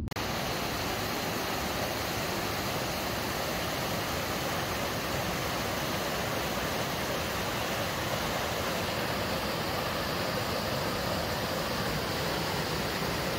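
Steady rush of white water from a waterfall, an even hiss that holds at one level throughout.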